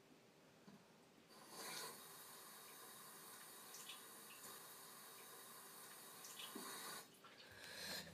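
Bathroom sink faucet turned on about a second in, the water running steadily into the basin with a few small splashes, then shut off about a second before the end.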